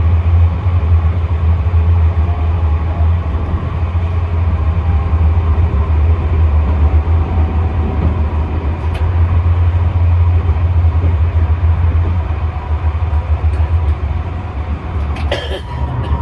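Tram running along the line, heard from inside the car: a loud, steady low rumble of wheels and drive, with a single sharp clack near the end.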